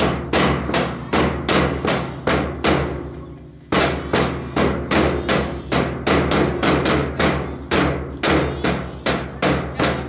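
Accompaniment music led by a loud, fast drum beat, about three strikes a second, over a steady low drone. The beat pauses for about a second near three seconds in, then picks up again.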